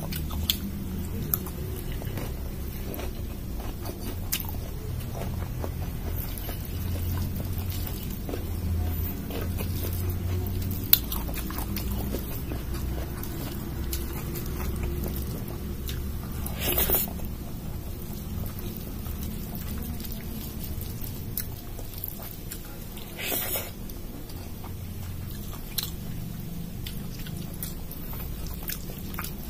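Close-up eating sounds of a person eating rice and lentil dal by hand: chewing and mouth noises with many small wet clicks, and the squish of rice being mixed into dal with the fingers. Two louder, noisier mouth sounds, each about half a second long, stand out about 17 and 23 seconds in.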